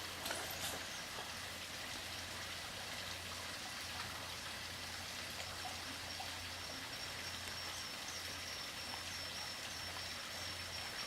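Steady hiss with a low hum beneath it. A thin, high, steady tone comes in about halfway through, and there are a couple of faint clicks just after the start.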